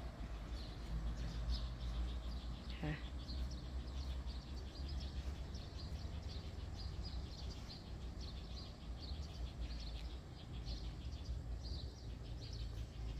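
Small birds chirping over a steady low rumble. One brief falling call comes about three seconds in.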